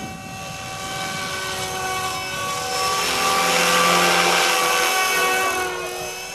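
Electric Mini Titan E325 model helicopter, fitted with a scale Dauphin fuselage, flying a low pass: the whine of its motor and rotor grows louder to a peak about four seconds in, then fades with a slight drop in pitch as it moves away.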